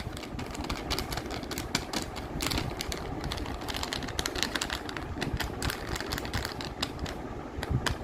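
Packaging crinkling and rustling as it is handled and opened, a dense, irregular stream of small crackles and clicks.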